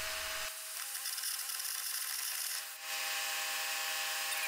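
Carbon arc gouging on the steel of a dozer blade boss: a steady hiss with a machine hum under it. The hum steps up in pitch about a second in and drops back near the end, and there is a brief dip in the sound just before the middle.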